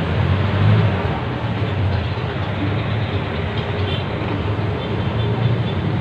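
A valve being lapped by hand into its seat with grinding compound in a Yamaha Mio Sporty's cylinder head, a steady scraping, over a continuous low background rumble.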